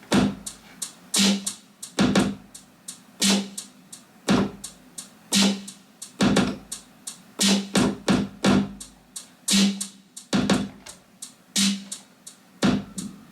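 Programmed drum beat from a Roland Juno keyboard's drum and percussion sounds, recorded into a Boss RC-300 loop station: a deep kick alternating with a snare about once a second, with lighter hi-hat ticks in between.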